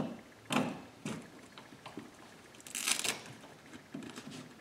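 Handling noise from the manual shift knob and boot being fitted over the gear lever: a few soft knocks and clicks, and a louder scraping rustle about three seconds in.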